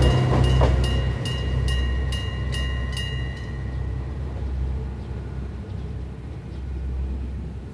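Electric bell of a railway level-crossing alarm ringing in quick regular strokes, about two a second, then stopping about three and a half seconds in, its ring dying away: the crossing alarm ending after the train has passed. A low rumble of the departing train fades underneath.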